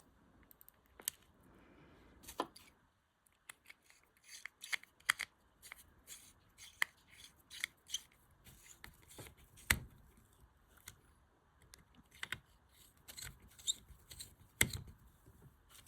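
Small screwdriver driving tiny screws into a plastic key fob housing, with irregular ticks, clicks and light scraping of metal on plastic. Two louder knocks come about ten seconds in and near the end.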